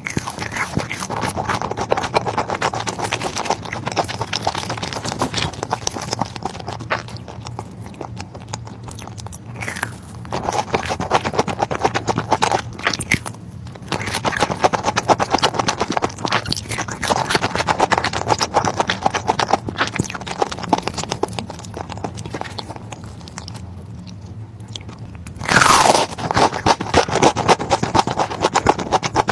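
Close-miked crunchy eating: bites and chewing with dense crackling crunches, coming in several bouts with short quieter pauses, the loudest burst near the end.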